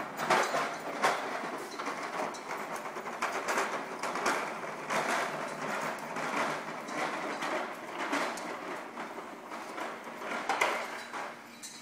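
Plastic wheels of a toddler's push-along ride-on toy rolling and rattling across a tile floor: a steady clatter with many small knocks.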